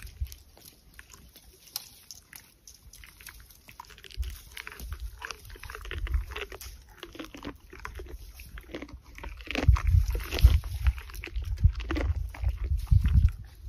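Bactrian camel chewing dry, spiny camel thorn: a run of short crunches and crackles as the stems break between its teeth, with heavier low thumps from about nine seconds in.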